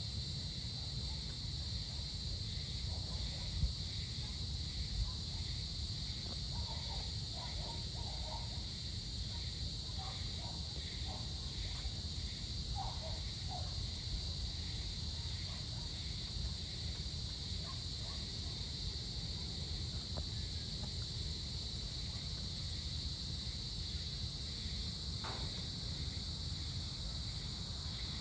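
Evening insect chorus: a steady high-pitched trill with a fainter pulsing call about twice a second over it, against a low steady rumble. A few faint short calls come through in the middle.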